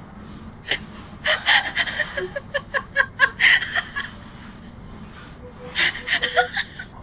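A person laughing in two bouts of short, breathy bursts, the first about a second in and the second near six seconds.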